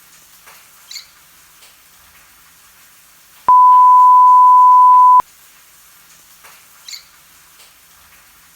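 A single electronic beep: one pure, steady tone held for under two seconds, switching on sharply about three and a half seconds in and cutting off just as sharply. Two faint short high sounds come before and after it, over quiet room tone.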